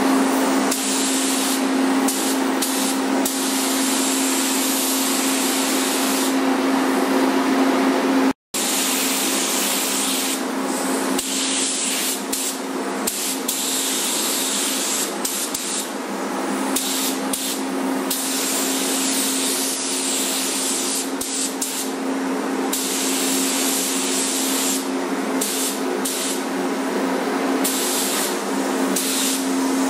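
Air-fed gravity-feed paint spray gun hissing in repeated passes, the hiss starting and stopping with each trigger pull, over a steady hum from the paint booth's air system. Everything cuts out for an instant about eight seconds in.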